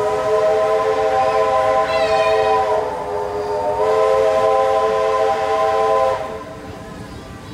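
Steam locomotive whistle giving one long chime blast of several notes at once, held about six seconds with a brief sag in the middle, then cutting off.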